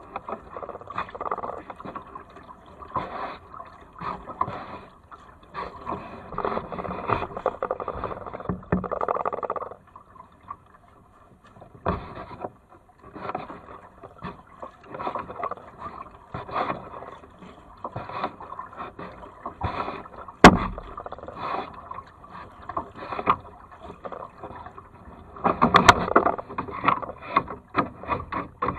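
Kayak paddling: the double-bladed paddle dipping and pulling through the water in a steady rhythm of splashes and drips, close to the boat. A single sharp knock about two-thirds of the way through stands out as the loudest sound.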